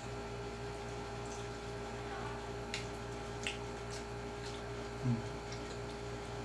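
Mukbang eating sounds: faint clicks and wet squishes of chewing and utensils over a steady background hum, with one short low voiced murmur about five seconds in.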